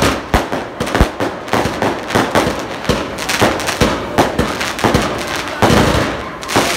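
Fireworks and firecrackers packed into a burning falla monument going off: an irregular string of loud bangs and cracks, several a second, over a steady hissing crackle.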